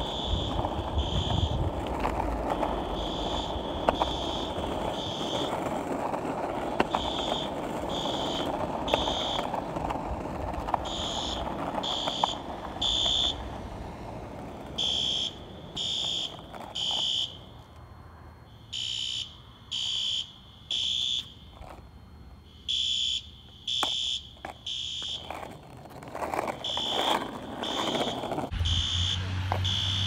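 Building fire alarm sounding the temporal-three evacuation pattern: three short, high-pitched beeps, a pause, then repeating about every four seconds. A low vehicle rumble lies under the first half, and an engine hum comes in near the end.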